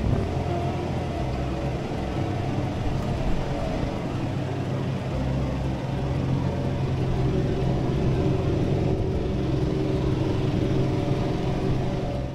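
John Deere 4075R compact tractor's diesel engine running steadily under load while driving a 10-foot RhinoAg TS10 flex-wing mower through grass, heard from inside the cab.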